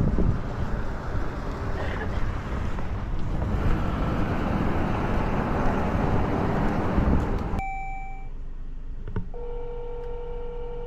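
Steady vehicle and road noise that cuts out abruptly near the end as a phone call is placed. A short beep follows, then a telephone ringback tone rings for about a second and a half.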